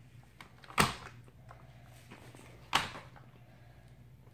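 Plastic swivel head of a Shark Lift-Away Pro steam mop knocking and creaking twice, about two seconds apart, as it is swung about on a hardwood floor, over a low steady hum.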